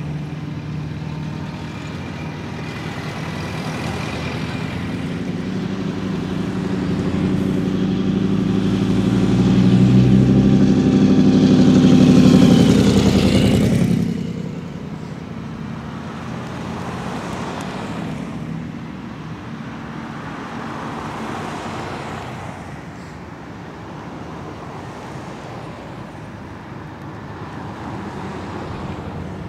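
Cars driving past one after another in a slow cruise procession, engines running. The engine sound builds to its loudest as one car passes close, falling in pitch as it goes by. It then drops abruptly about halfway through, and quieter engines pass after that.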